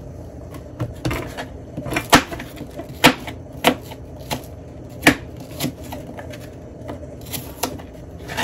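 Knife knocking on a cutting board while apples are cut into small pieces: irregular sharp taps, roughly one a second.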